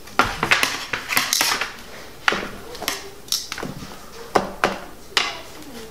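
Metal kitchen tongs clinking and scraping against metal sheet pans while a rack of ribs is lifted and set down: a quick flurry of clinks in the first second and a half, then single clicks every half second or so.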